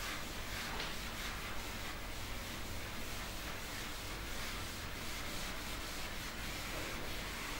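Writing on a board: faint rubbing strokes over a steady background hiss.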